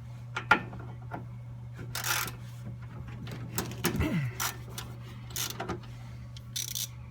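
Hand tools being handled on a workbench while a socket is found and fitted: scattered clicks, knocks and short rattling scrapes, with a brief falling squeak about four seconds in. A steady low hum runs underneath.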